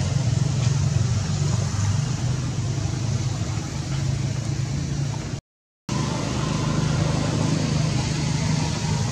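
Steady low motor drone that holds an even pitch, cut off by a brief silent break about five and a half seconds in.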